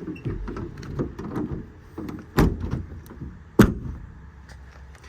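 Metal service-body drawers rattling as they slide and bang shut, with a string of knocks and two sharp bangs, one about two and a half seconds in and a louder one about a second later.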